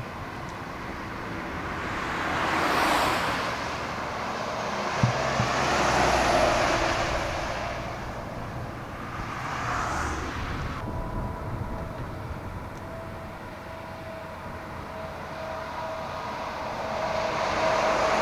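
Heavy road traffic passing, trucks going by one after another, their tyre and engine noise swelling and fading about four times. From about eleven seconds in a steady high tone joins the traffic noise.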